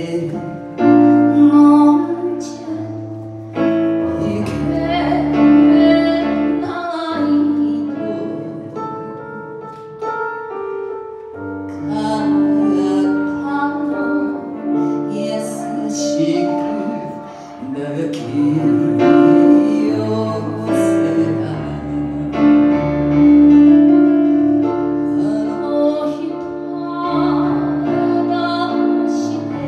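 A woman singing into a microphone over electronic keyboard accompaniment, heard through a PA.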